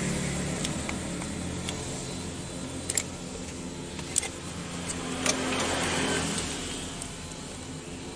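Sharp metallic clicks, about one a second, as a flat-blade screwdriver turns the tensioner adjuster of a Honda Vario 110 engine counterclockwise. Under them runs a steady low engine hum.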